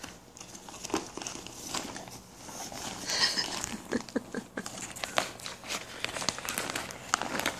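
Brown kraft-paper postal mailer, a USPS Ready Post bag, crinkling and rustling as it is pulled open and rummaged through, with plastic packaging rustling inside; a run of irregular crackles.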